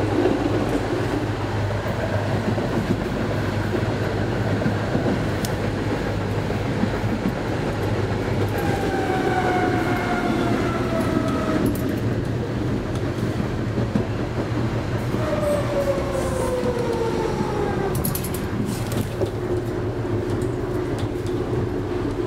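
Konstal 13N tram, a Tatra T1-type car, heard from inside the passenger car while running on the rails: a steady low hum and rumble of wheels and motors. Twice a motor whine falls in pitch as the tram slows, and a steady hum follows in the last few seconds.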